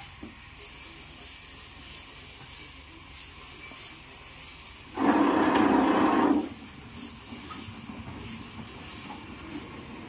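Sawmill machinery running steadily in the background. Midway, a loud rushing noise starts abruptly, lasts about a second and a half, and cuts off.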